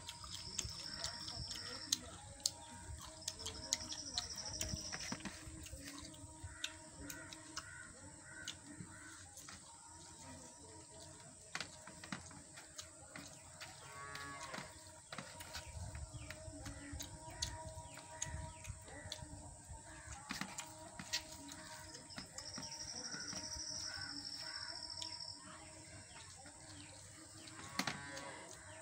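Close-up eating sounds of a man eating rice and mole crab thokku with his fingers: chewing, with frequent sharp clicks and mouth smacks. Cattle low in the background, and a high buzzing chirp comes three times.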